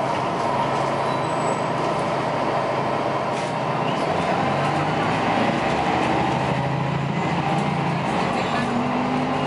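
Articulated city bus heard from inside its cabin while on the move: the diesel engine and drivetrain hum steadily under road noise, and the engine note rises near the end as the bus picks up speed.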